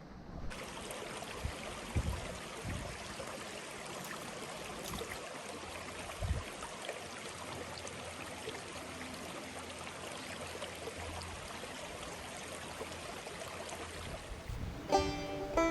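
Water of a small stream running steadily. Plucked guitar music comes in near the end.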